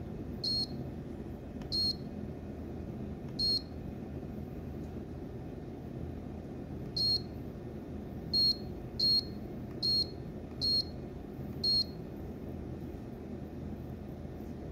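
Keypad beeps from an A-Techel Thermo truck-refrigerator temperature controller as its buttons are pressed to step through settings. Nine short high beeps: three spaced out in the first few seconds, then six in quicker succession in the second half, over a steady low hum.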